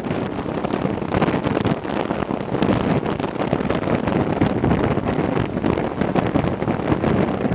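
Wind buffeting the microphone on a moving motorboat, over the steady running of the boat's motor and water along the hull.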